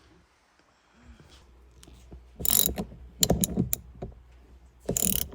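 Hand ratchet wrench clicking in short strokes as a bolt is turned, a burst of clicks about every second starting a couple of seconds in.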